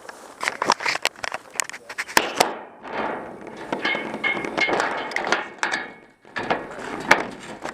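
Airsoft guns firing: a quick string of sharp cracks, a denser stretch of rapid firing in the middle, and more cracks after a short break near the end.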